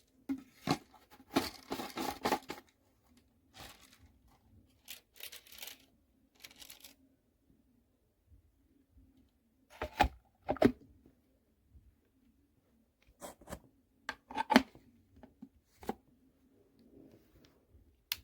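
Handling noises: irregular bursts of rustling and tearing, with several sharp clicks, over a faint steady hum.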